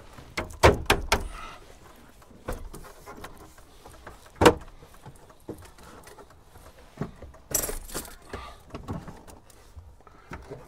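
Plastic dash trim around a 2005 Chevy Silverado's gauge cluster being pressed and snapped into its clips by hand: a string of sharp clicks and knocks, the loudest about four and a half seconds in. Keys hanging in the ignition jingle along with it.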